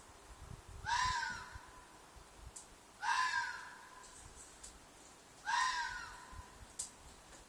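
Fox screaming three times, about two seconds apart: each a single harsh, hoarse shriek that arches in pitch and then fades, the loud call a fox makes at night in the mating season.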